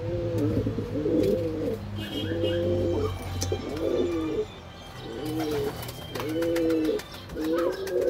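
Pigeons cooing: a low, double-toned, arched coo repeated about once a second. Faint high chirps from small birds sound in the background.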